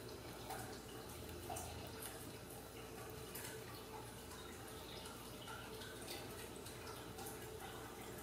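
Faint small clicks and soft rustling from a hand scratching a kitten's fur, over a low steady hum.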